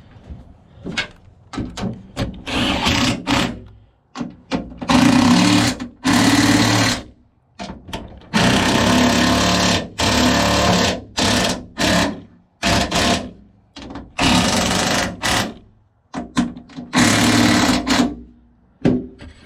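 A power drill running in about six short bursts of one to three seconds each, driving in the screws of a truck tailgate latch.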